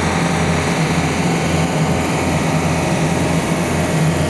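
Bomag tandem asphalt roller (Asphalt Manager type) running as it rolls over fresh asphalt: a steady engine sound with a low throb pulsing about twice a second.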